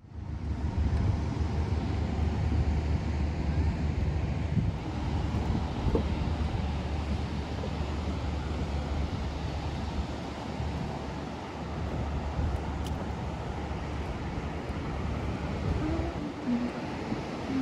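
Wind buffeting the microphone in a steady low rumble, with ocean surf washing behind it.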